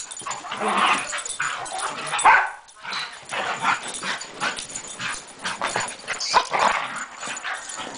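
Two terriers play-fighting, yipping and barking in short, rapid bursts, loudest a little over two seconds in.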